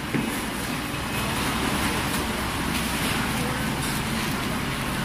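Vacuum skin packaging machinery running with a steady hum and hiss.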